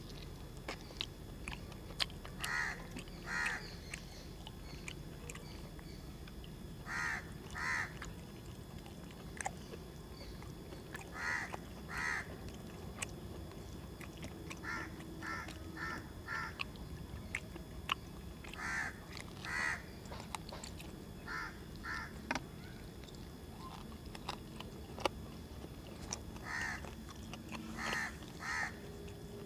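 Crows cawing over and over, mostly in pairs of short calls, with a quick run of four calls about halfway through. Faint clicks of chewing sit underneath.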